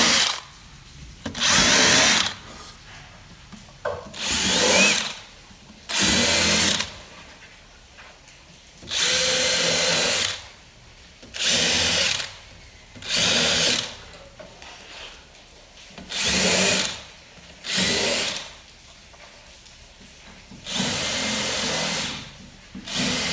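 DeWalt 20V XR cordless hammer drill boring a series of short holes into pine boards: about ten brief bursts of a second or so each, the motor whine rising as it spins up, with pauses between holes.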